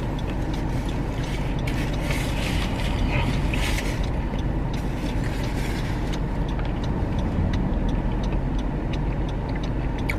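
Steady hum of a vehicle engine idling, heard from inside the car, with a brief rise of hissing noise about two to four seconds in.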